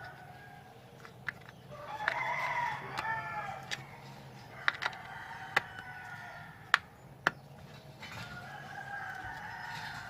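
A rooster crowing about two seconds in and again near the end, with a few sharp clicks in between and a low steady hum underneath.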